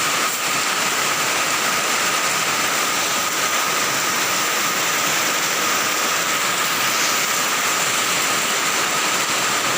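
Heavy rain pouring down steadily, a loud even hiss.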